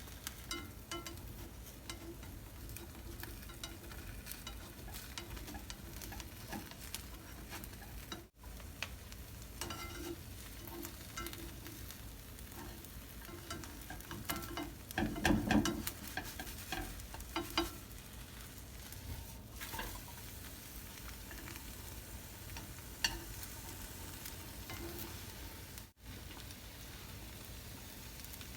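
Egg frying in a pan with a steady sizzle, broken by scattered light taps and scrapes of a utensil and a louder clatter about halfway through.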